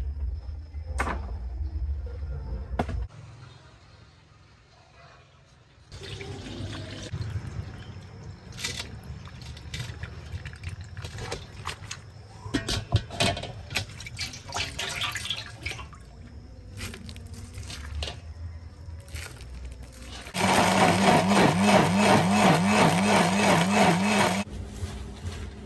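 Peeled rambutan flesh tipped from a metal bowl into a steel strainer sitting in water, with splashing and scattered clinks of metal on metal. Near the end an electric blender runs loudly for about four seconds, its motor pitch wavering as it blends the fruit.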